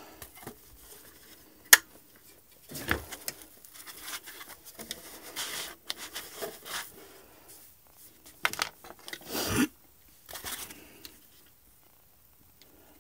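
Irregular plastic clicks, rubs and scrapes from hands working the round plastic base stand of an Xbox Series X. There is one sharp click about two seconds in and bouts of louder scraping later on.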